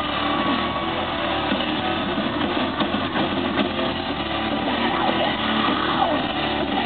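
Live rock band playing loudly with a cheering crowd, heard as a dense, smeared wash through a camera microphone. A few high voices or screams come and go near the end.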